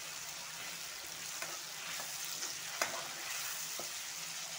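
Onion, garlic and tomato frying in hot oil in a kadai, sizzling steadily while a metal spoon stirs and scrapes through them. A few clicks of the spoon against the pan, the sharpest a little under three seconds in.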